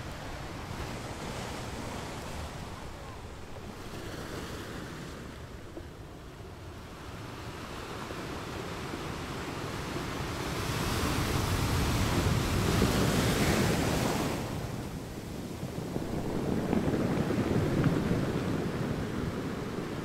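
Ocean waves washing on a shore: a steady rushing that swells into a louder surge about halfway through and another near the end.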